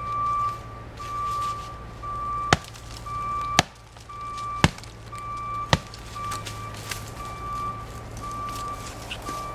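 Four sharp knocks about a second apart, blows struck on wood, over a steady low hum and a high beeping tone that comes on and off about twice a second.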